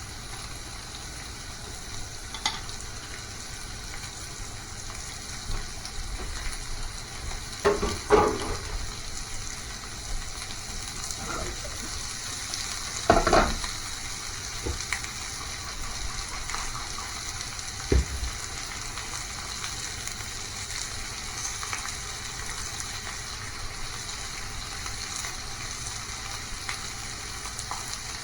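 Food sizzling steadily in a frying pan, with a few knocks and scrapes of a utensil against the pan, the loudest about a third of the way in and near the middle.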